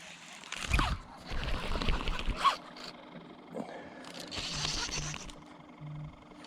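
Fishing reel zipping in three short bursts while a hooked fish is played, with a few low knocks of handling.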